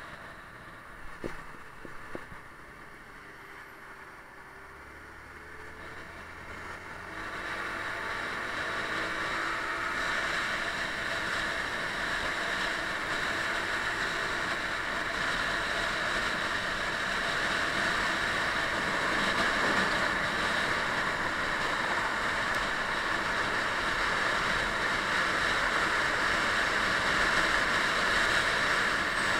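Motorcycle riding in traffic: engine and wind noise on the camera's microphone, quieter at first, then growing louder about seven seconds in as the bike picks up speed, and staying steady after that.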